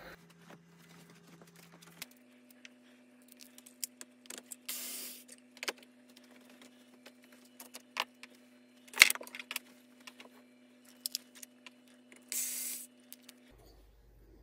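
Cordless drill-driver taking out screws from a printed holder on a CNC machine's side plate: two short runs of the driver, with scattered clicks and small metal clinks as parts are handled, and one sharp clack about nine seconds in.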